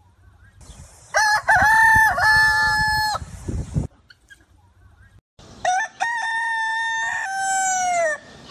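Rooster crowing twice, each crow a long call of several seconds, the second ending with a falling pitch.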